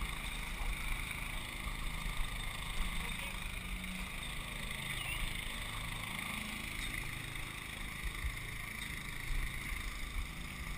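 Steady low rumble of a boat under way, with water rushing past a swamped hull towed alongside.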